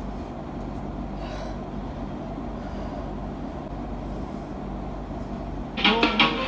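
A steady low hum and rumble. Background music with a plucked guitar comes in near the end.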